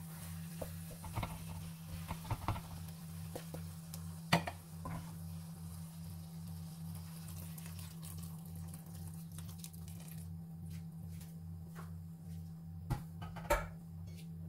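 Wooden spatula scraping and knocking against an enamelled pan while risotto rice, leeks and mushrooms sizzle. Stock is then poured in and the sizzle dies away. A steady low hum runs underneath.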